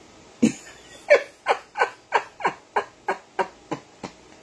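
A man laughing out loud in a steady run of about eleven short "ha" bursts, roughly three a second, each dropping in pitch, starting about half a second in.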